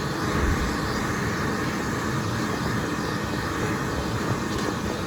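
An old escalator running: a steady mechanical noise with a low hum underneath, its handrail moving slowly.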